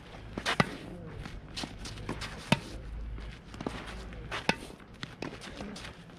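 Footwork on a dirt tennis court: a sharp knock roughly every two seconds, with lighter steps and shoe scuffs between them.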